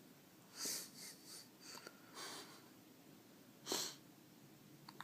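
A run of short, breathy hiccups at uneven intervals, about half a dozen, the loudest one nearly four seconds in.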